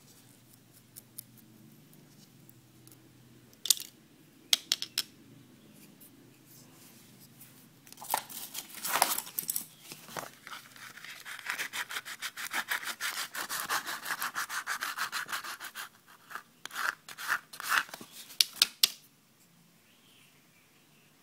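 A thin metal drill bit scraping and rasping against the split tip of a wooden stick, cutting out its slot. There are rapid back-and-forth strokes through the middle, with scattered sharp clicks before and after.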